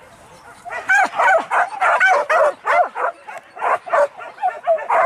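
A pack of hunting dogs yelping and barking excitedly on a boar chase: rapid, high, overlapping cries that break out less than a second in.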